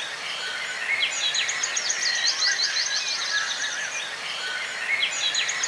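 Birds singing: a song of rapid, high, quickly repeated chirps that starts about a second in and comes again near the end, over other softer bird calls.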